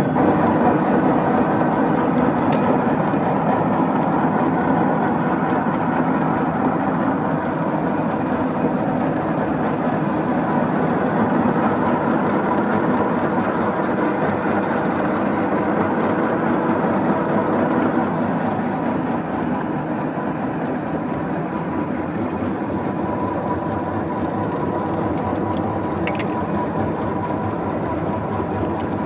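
A NILES 40-inch-swing engine lathe running steadily at 236 RPM, giving a loud mechanical hum with several held tones.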